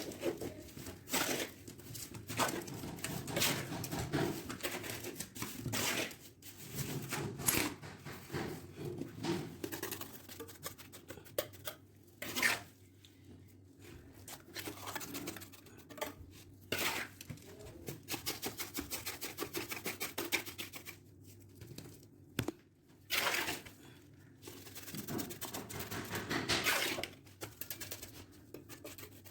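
Hand-tool plumbing work on a bathroom drain: irregular clinks, knocks and scraping, with a quick run of rapid rasping strokes about two-thirds of the way through.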